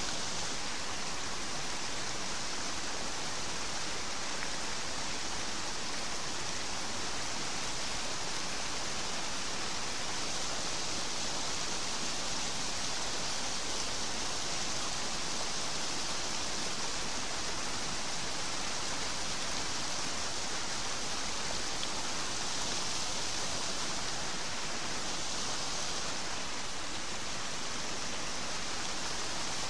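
Water pouring over a concrete weir into a churning whitewater pool, a steady, hissing rush.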